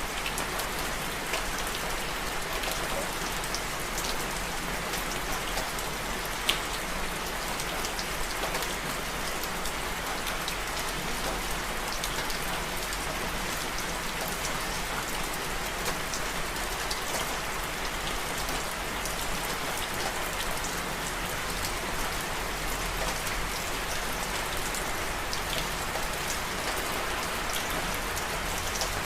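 Steady rain falling on a surface, a continuous patter with individual drops ticking here and there and one louder drop hit about six and a half seconds in.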